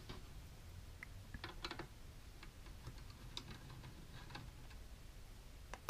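Faint, scattered clicks and ticks of a screwdriver backing a small screw out of the metal framework inside a QNAP TS-231P2 NAS, with a sharper click near the end.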